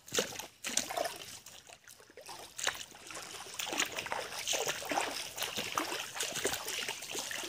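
Shallow stream trickling and babbling over stones, a steady, irregular water sound.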